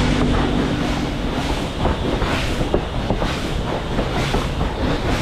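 Train running on the rails: a steady rumble with irregular clanks and clatter.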